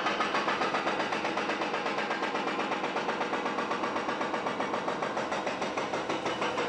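Rapid, even mechanical knocking, about five blows a second.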